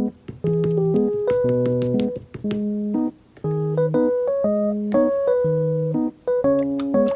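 Background music: a bouncy electric piano melody over a bass line, in short phrases with brief breaks between them.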